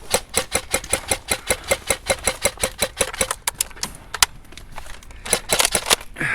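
A rapid, even run of sharp clicks, about six a second, lasting some three and a half seconds, then a faster cluster of clicks about a second before the end.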